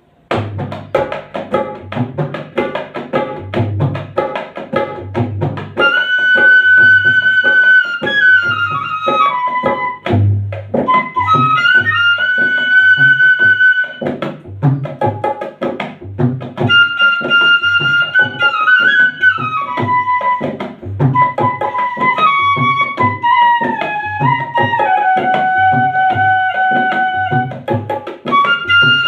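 Bansuri flute playing a melody of long held notes that bend and slide between pitches, over a steady hand-percussion beat. The beat starts at once and the flute comes in about six seconds later.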